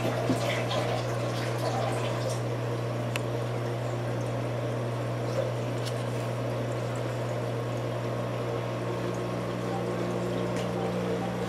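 Saltwater reef aquarium running: a steady low pump hum under continuous trickling and splashing of circulating water.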